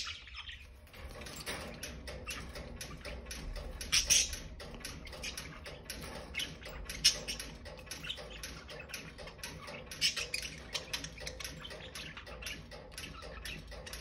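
Pet budgerigars chirping and chattering in their cage: a busy stream of short, high chirps, with a few louder calls about four, seven and ten seconds in.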